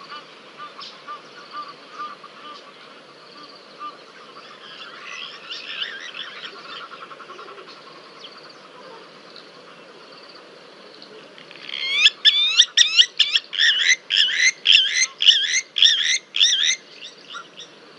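Wild animal calling at a waterhole: fainter scattered calls at first, then about twelve seconds in a loud run of rapid, repeated rising-and-falling calls, about three a second for some five seconds, before it stops.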